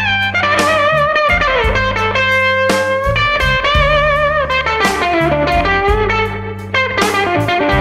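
Electric blues instrumental break: a lead electric guitar plays sustained notes with bends and vibrato over a steady bass line.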